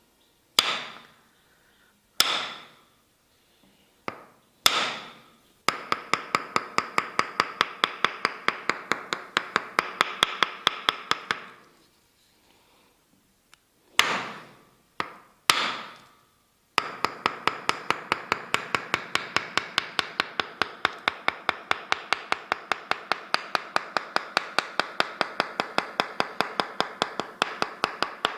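Tok sen massage: a wooden mallet striking a wooden wedge held against the body. First come single ringing knocks a second or two apart, then long runs of fast, even tapping at about four to five strokes a second, broken by a short pause.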